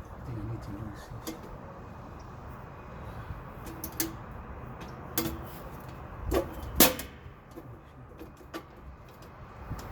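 A few sharp clicks and knocks from handling the metal parts of an electrical panel board and its fitted safety lock. The loudest two knocks come close together, about six and seven seconds in, over a low steady background noise.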